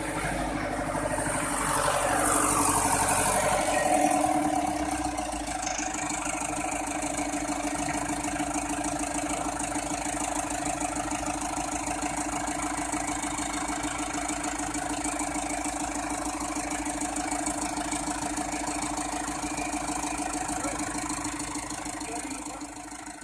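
Tractor engine running, louder and falling in pitch over the first few seconds, then settling to a steady idle.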